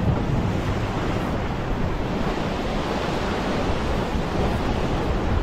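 Ocean swell surging and washing over a rock ledge as a steady rush of surf, with wind buffeting the microphone.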